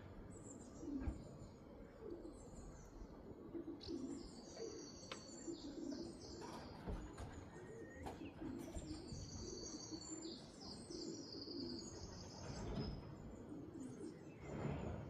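Racing pigeons cooing in and around the loft, a low repeated call all through, with runs of high, quick chirps from other birds over it in the middle.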